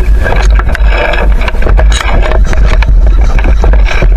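Heavy low rumble of wind and handling noise on a hat-mounted action camera's microphone, with many short scrapes and clicks from the player's gear.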